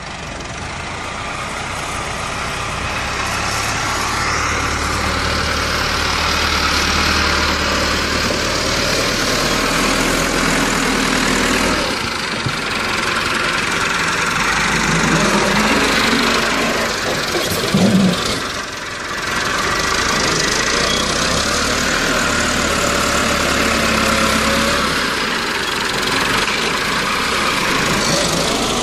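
Massey Ferguson 375 tractor's four-cylinder diesel engine running under load while its front blade pushes soil. It grows louder over the first few seconds as the tractor comes close, and the engine note rises and falls a couple of times past the middle.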